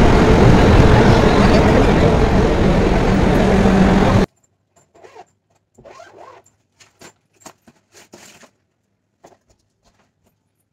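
Indian Railways passenger train with LHB coaches rolling past along the platform, a loud steady rumble that cuts off abruptly about four seconds in. After that there are only faint scattered clicks and brief murmurs.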